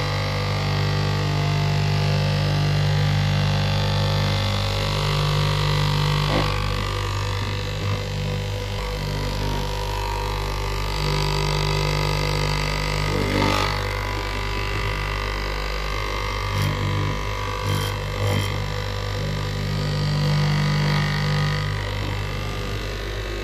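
Straight-knife cloth cutting machine running with a steady electric-motor hum as its vertical blade cuts through a thick stack of fabric, the hum swelling and easing as the cut goes on. A few short clicks come through about halfway through.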